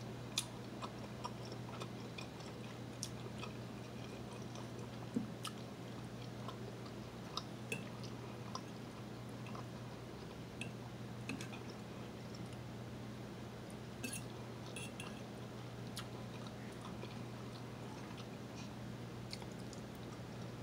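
A person chewing food with the mouth close to the microphone, with scattered sharp little clicks and smacks over a steady low hum.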